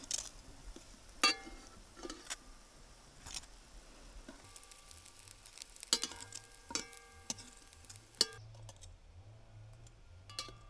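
Dishes and utensils being handled: a series of separate clinks and knocks, several ringing briefly, most of them bunched in the middle of the stretch.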